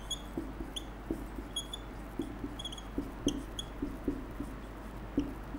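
Marker pen writing on a whiteboard: short high squeaks with light taps at each stroke, about two to three a second.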